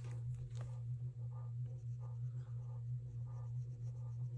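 Marker tip scratching on paper in quick short strokes as a small box on a savings chart is coloured in, over a steady low hum.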